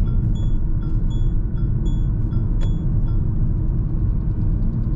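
Steady low rumble of engine and tyres heard inside the cabin of a Mahindra XUV 3XO accelerating gently on a rough rural road. A string of short, high chirps sounds over it during the first three seconds, with a single click near the end of them.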